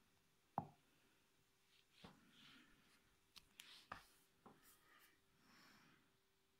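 Near silence with a handful of faint taps and soft rustles from hands handling a smartphone and tapping its screen, the sharpest tap about half a second in, over a faint steady hum.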